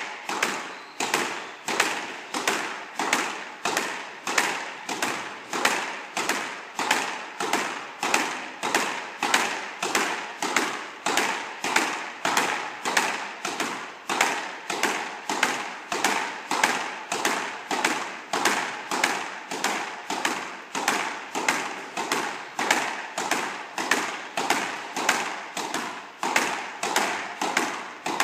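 Squash ball volleyed rapidly in a figure-of-eight drill: racket strikes and front-wall impacts in a steady, even rhythm of about one and a half shots a second, each hit ringing briefly in the court.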